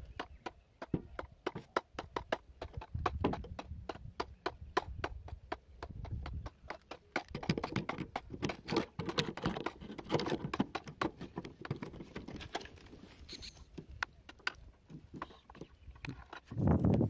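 Irregular clicks and taps of hands handling a single-phase pump starter and the wooden board it is mounted on, with a louder low rumble near the end.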